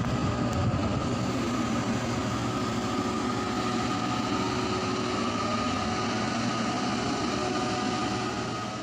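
Floating crane's machinery running while it swings its loaded grab: a steady low mechanical hum with a thin whine on top.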